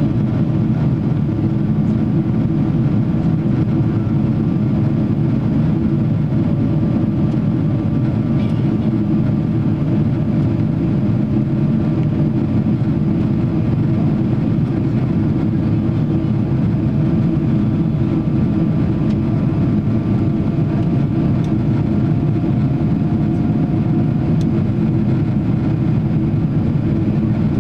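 Steady jet cabin noise inside a Boeing 777-300 climbing after takeoff: engine drone and airflow heard from a seat over the wing, with a faint engine whine that slowly rises in pitch.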